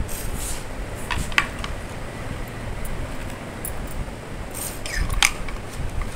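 Ceramic plates and a fork clinking against each other and the table as they are handled: a few short clinks about a second in and again near the end, over a steady low hum.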